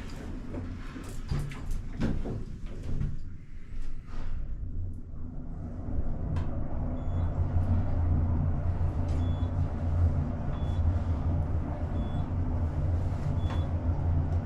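Passenger elevator car in motion: a few clicks and knocks in the first seconds, then about six seconds in a steady low hum sets in as the car rides upward, with faint short high beeps every second or two.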